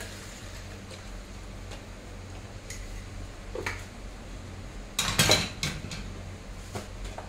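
Kitchen handling clatter: a light knock as a milk carton is set down on the counter, then a louder burst of clattering knocks like dishes or utensils being handled about five seconds in. A faint steady low hum runs underneath.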